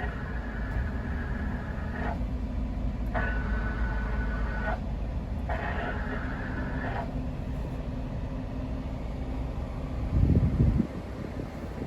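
Suzuki Every kei van's engine running with a steady low rumble. A higher-pitched abnormal noise comes and goes three times, each for a second or two, and is suspected to come from the clutch. About ten seconds in there is a brief louder low rumble.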